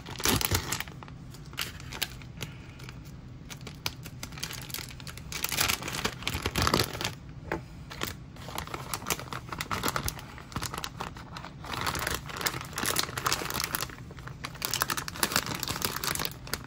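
Plastic bag of shredded mozzarella crinkling and rustling in the hands as it is tipped and shaken over a bowl, with irregular crackles throughout.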